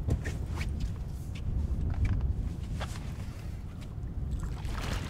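Wind buffeting the microphone with a low rumble, with scattered light knocks and ticks from gear in a fishing boat. Near the end a rush of water noise, splashing as a walleye is brought to the landing net.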